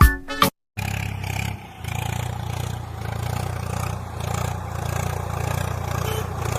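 Heavy diesel machinery engine running steadily at a constant speed, with a brief dip in level about a second after it starts.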